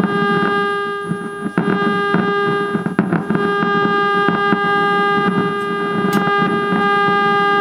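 A steady electronic tone of about 400 Hz with a ladder of overtones runs over a rough low buzz, from a valve television driven by a test pattern generator. A few short clicks come as the controls are worked, and a faint high whistle sits above it all.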